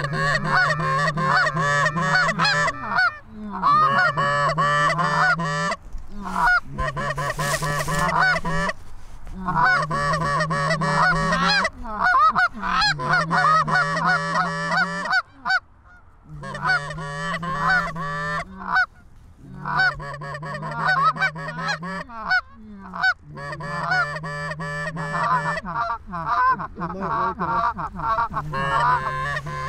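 A flock of geese honking, many calls overlapping, in stretches of a few seconds broken by short pauses.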